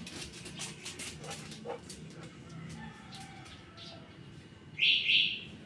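A dog gives two short, high-pitched yips in quick succession near the end.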